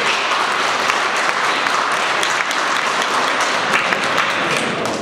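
Audience applauding steadily, a dense roll of many hands clapping.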